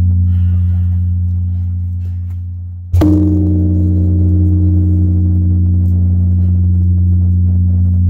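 Large Buddhist temple bell: the deep hum of one stroke fades away, then the bell is struck again about three seconds in and rings on long, a deep hum under several higher tones.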